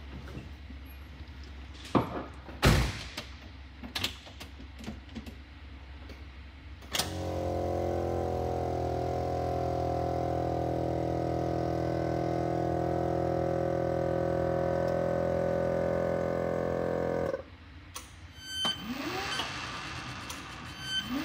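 Lectra 2+2 electric car's motor switched on and running with a steady whining hum for about ten seconds, then cut off suddenly. Sharp clicks and clunks come before it, and more clicks and a short rising whine near the end.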